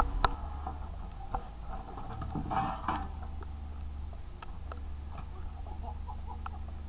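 Wheeled excavator's diesel engine running low and steady, with scattered small clicks and knocks and a short scraping rustle about two and a half seconds in.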